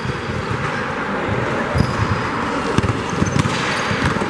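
Basketball dribbled on a gym court: irregular low thuds of the ball hitting the floor, over the steady noise of the hall.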